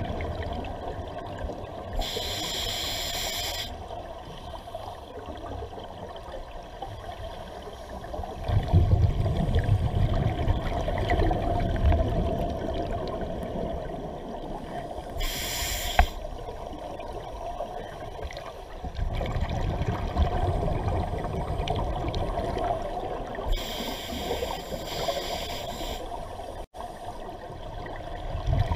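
Scuba breathing heard underwater: exhaled bubbles from a regulator hiss out in three bursts, about two, fifteen and twenty-four seconds in, with low bubbling rumble between.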